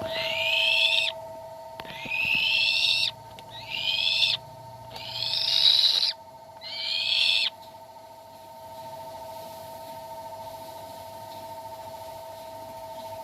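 A bird of prey screaming: five calls of about a second each, each rising in pitch, then stopping about halfway through. A steady hum runs underneath.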